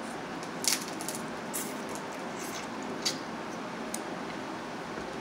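Cooked blue crab shells being cracked and picked apart by hand, with a few sharp cracks over a steady hiss.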